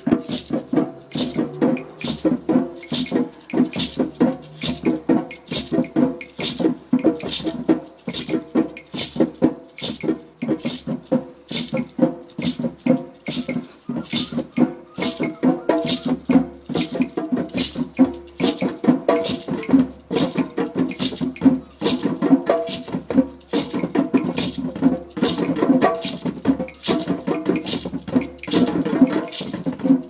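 Djembe hand drumming: a steady, even rhythm of sharp strikes, several a second, over ringing lower drum tones.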